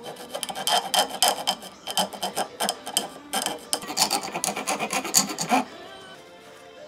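Flat hand file scraping back and forth across the edge of a small aluminium sheet part clamped in a bench vise, in quick rasping strokes. There is a brief pause midway, and the filing stops about a second before the end.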